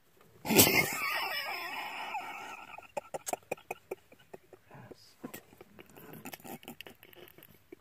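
A person's voice breaks out suddenly and loudly about half a second in and trails off over about two seconds, followed by a string of short, sharp bursts at roughly four to five a second, in the manner of held-in laughter.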